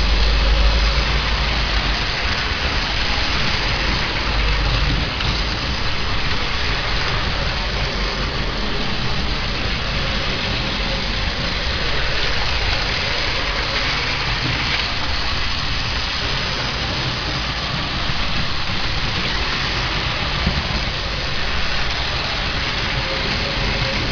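Battery-powered Plarail toy trains running on plastic track: a steady motor whir with the rattle of wheels and track.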